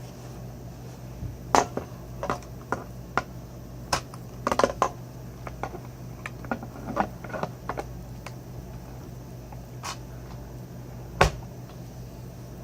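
Irregular clicks, taps and clatter of hard vacuum-cleaner parts being handled and fitted during reassembly of a Kirby vacuum, with one loud knock near the end.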